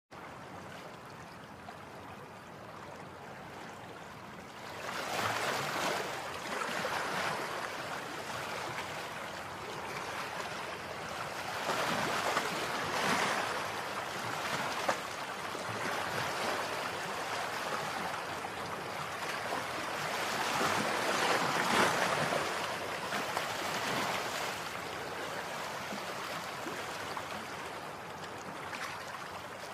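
Rushing water noise that swells and fades in slow, irregular surges a few seconds apart.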